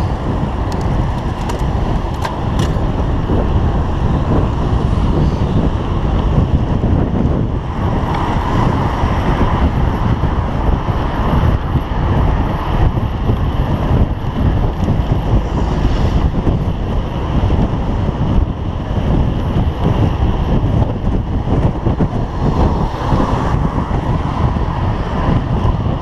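Steady rush of wind and road noise on a bicycle-mounted camera's microphone while riding fast through city traffic, with passing motor traffic running underneath.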